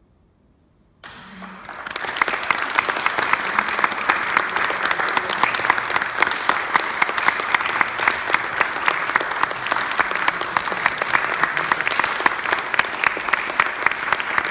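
Audience applauding. It starts suddenly about a second in and quickly builds to steady, dense clapping.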